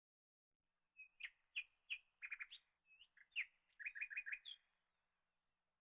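A small bird chirping in two quick runs of sharp chirps, each lasting about a second and a half.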